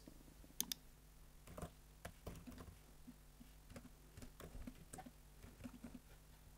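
Faint typing on a computer keyboard: soft, irregular keystrokes, with two sharper clicks close together a little under a second in.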